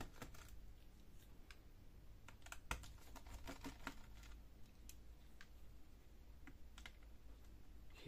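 Faint, scattered small clicks of a precision screwdriver turning out the tiny screws that hold a laptop battery, against near silence. The sharpest click comes a little before the middle.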